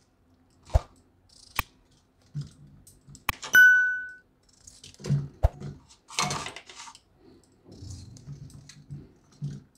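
Potato halves being set into a pressure cooker pot, giving soft thuds and scattered knocks and clicks. About three and a half seconds in comes a click and then a single ringing bell chime, the loudest sound, which fades out; it is a subscribe-button sound effect.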